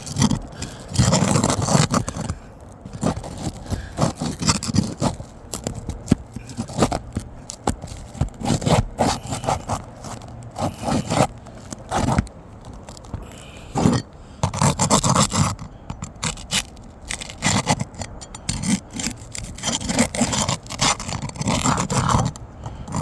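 Brittle roof shingles scraping and crackling in irregular bursts as a piece is worked and pushed underneath them. The old roofing is so brittle that it crumbles as it is handled.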